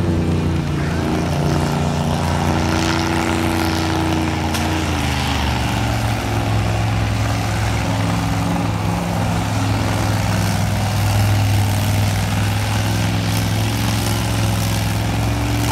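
Vehicle engine held at high, steady revs during a tyre-smoking burnout; its pitch shifts about five seconds in, then holds.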